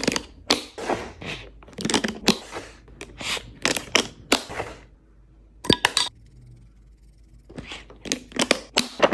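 Food packaging and containers being handled and set into a refrigerator: irregular crackling, scraping and knocks, then a lull broken by two sharp clicks about six seconds in, and more handling near the end.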